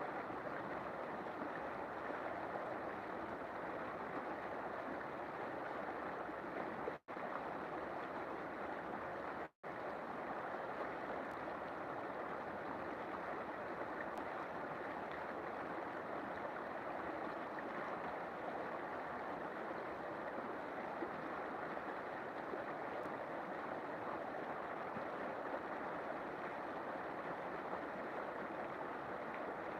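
River water flowing with a steady, even rush. The sound drops out completely twice for an instant, about seven and nine and a half seconds in.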